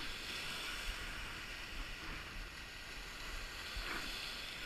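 Small wind-driven waves breaking and washing up the lake shore, with wind rumbling on the microphone; the wash swells at the start and again about four seconds in.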